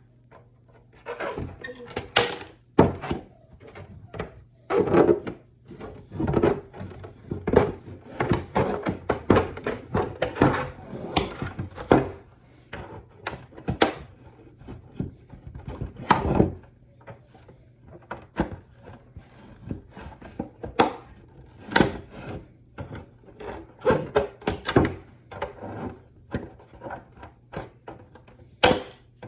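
Shears cutting excess plastic off a costume armour chest piece: an irregular run of sharp snips and clacks, sometimes two or three a second.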